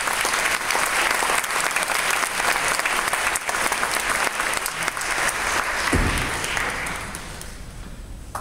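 Audience applauding, a dense patter of many hands that dies away over the last second or so, with one brief low thump about six seconds in.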